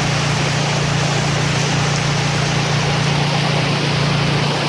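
Heavy rain pouring down in a steady, even hiss, with a constant low drone beneath it.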